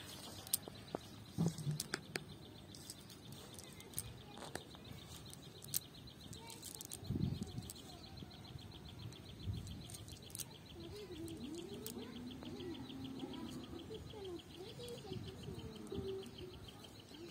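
Clicks and rustles as a cast net's weighted edge and mesh are handled on grass, over a steady, fast, high-pitched pulsing trill. A few low wavering calls come in over the last third.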